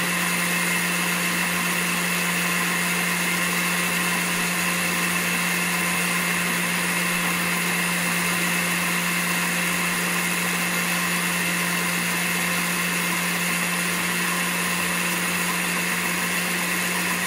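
Countertop blender running with a steady hum while olive oil is drizzled in a thin stream through the lid to emulsify Caesar dressing.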